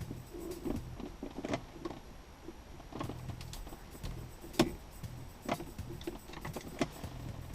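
Phillips screwdriver working screws out of a car dashboard's plastic trim: scattered small clicks and knocks, a few sharper ones, over a low hum.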